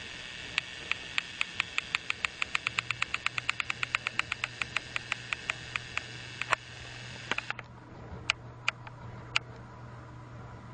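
Motorized toy train running: a rapid, even clicking that speeds up from about three to six clicks a second over a low motor hum. Near the end the clicking stops abruptly and only a few scattered clicks follow.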